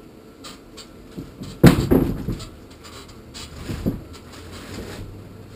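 A large deck hatch panel on a boat being lifted and stood on end: one loud knock about a second and a half in, then a few lighter bumps and scrapes as it is handled.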